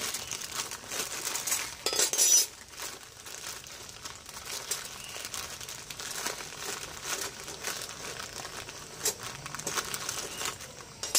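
Clear plastic bag crinkling as hands rummage in it and pull out cut metal speargun trigger-housing plates, with light metallic clinks of the plates against each other. The crinkling is loudest about two seconds in.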